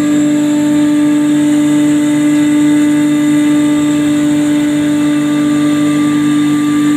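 Seed spice processing plant machinery running: a loud, steady hum with one strong fixed tone that does not change pitch, from its motors and vibrating stainless-steel chutes as seed moves through.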